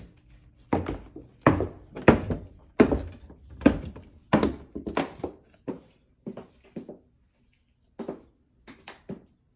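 Footsteps thudding down hardwood stairs, about one step every two-thirds of a second, then a few softer steps on the floor at the bottom.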